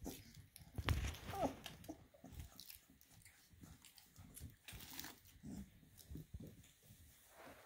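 Four-week-old puppies playing on a tile floor: claws clicking and scuffing, chewing and mouthing noises as they gnaw on each other, and a few short squeaky whimpers.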